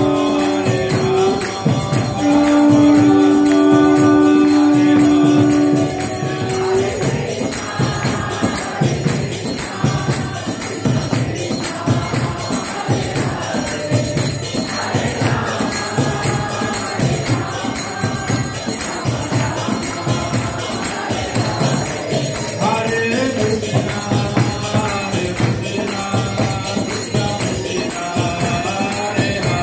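Devotional kirtan: group chanting with jingling hand cymbals keeping a steady rhythm. It opens on a held two-note chord, which gives way to the full rhythmic chanting about six seconds in.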